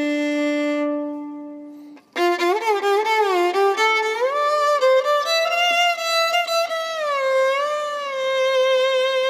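Background instrumental music with a single melody line. A long held note fades out about two seconds in, and after a short break the melody returns with sliding, wavering notes.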